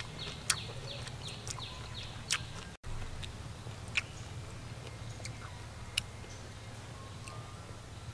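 A person eating with chopsticks: about four sharp clicks of chewing and chopsticks, spaced a second or two apart, over a low steady hum.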